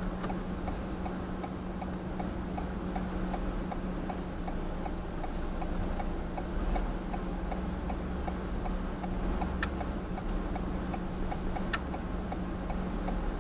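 Car's turn-signal indicator clicking steadily inside the cabin, about three clicks a second, over a steady low hum. Two sharper clicks sound near the end.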